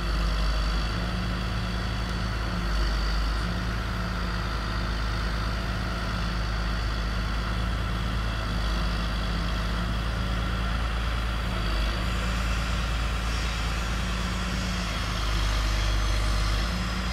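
Diesel engine of a Locatelli Grill 830 mobile crane running steadily while the crane hoists a load, growing a little louder near the end.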